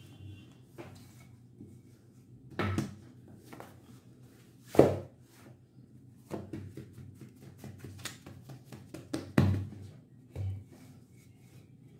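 Yeast dough being rolled out and pressed by hand on a stone countertop: quiet rubbing and handling with several dull thumps, the loudest about five seconds in and another at about nine and a half seconds.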